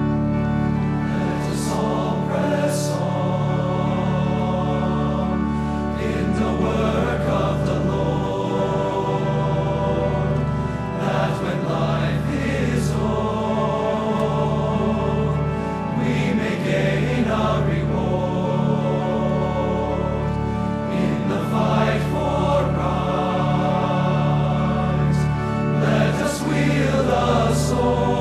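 Mixed choir singing a hymn with organ accompaniment, the organ holding steady low notes under the voices.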